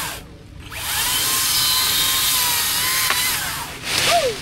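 Power saw cutting through a tree branch, running steadily for about three seconds, with a brief burst at the start and another near the end.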